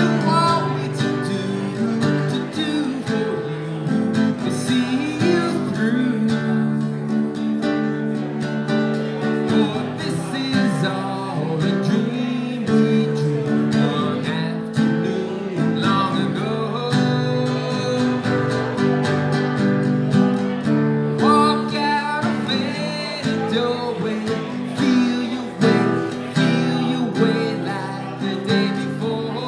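A man singing while strumming an acoustic guitar, a solo live performance of a song.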